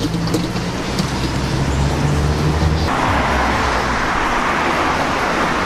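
Road traffic: cars running with a low engine hum, then from about three seconds in the steady tyre noise of cars passing close by.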